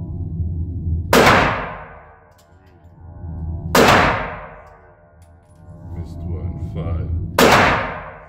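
Three shots from a Glock 20 pistol in 10mm Auto, fired slowly, two to four seconds apart, each with a long ringing echo. A steady low hum runs underneath.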